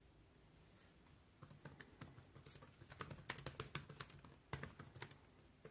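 Typing on the Acer Chromebook Spin 513's laptop keyboard: a quick, uneven run of quiet key clicks that starts about a second and a half in and stops shortly before the end.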